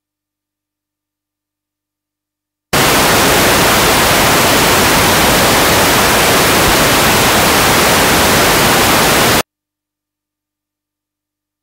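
Silence, then about three seconds in a loud, even burst of static hiss that starts and cuts off abruptly after nearly seven seconds, followed by silence again.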